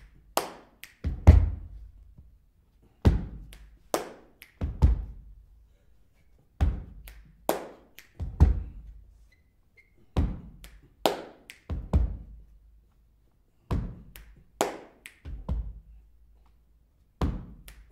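A sparse, slow drum beat of deep kick hits and a sharper snare-like hit, falling in groups of three and repeating about every three and a half seconds, with nothing else playing between the groups.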